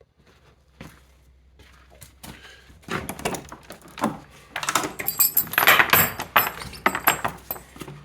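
A door being opened: irregular rattling, clicks and scraping of the latch and door, loudest about five to six and a half seconds in.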